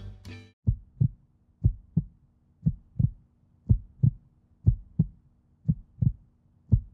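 Heartbeat sound effect: a low double thump, lub-dub, about once a second, seven times over, with a faint steady hum beneath. The tail of a piece of music cuts off in the first half second.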